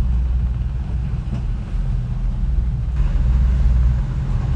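Catamaran's diesel engine running steadily under way, a low drone. A rushing hiss comes up about three seconds in.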